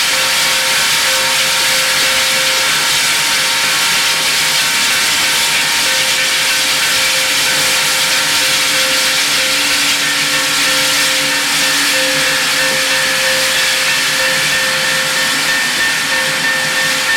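Union Pacific 3985 Challenger steam locomotive hissing steam steadily and loudly, with a steady whine underneath and no exhaust beats.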